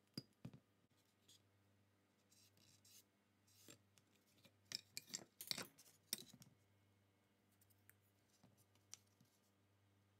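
Light handling of tools and a wooden board on a cutting mat: a few soft clicks at the start, then a run of short scraping and rubbing noises about five to six seconds in, then an occasional tick.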